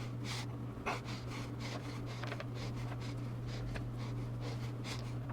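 Soft, irregular scratchy strokes of a glue brush spreading wood glue onto the end faces of wood segments, over a steady low hum.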